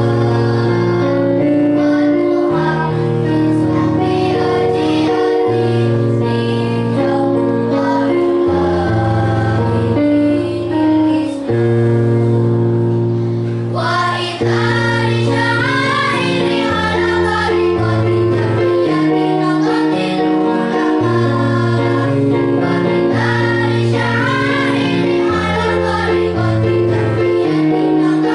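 Children's choir singing over sustained instrumental accompaniment chords; the voices come in much louder about halfway through.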